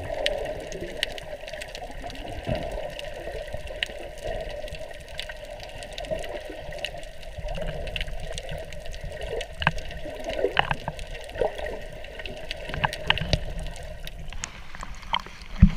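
Muffled underwater sound picked up by a submerged camera: a steady watery rush peppered with many small clicks and crackles, with a couple of sharper splashy hits at the very end.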